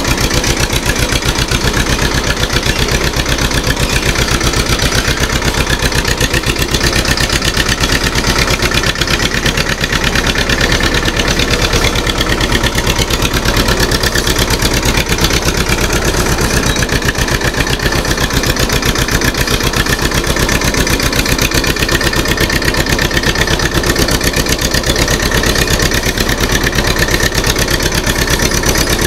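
TAFE 25 DI tractor's diesel engine running steadily, with a rapid, even chugging beat.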